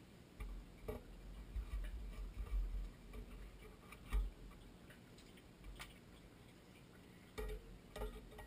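Scattered light clicks and knocks with low bumps as gloved hands work on a well pump's pressure switch cover, in clusters at the start and again near the end.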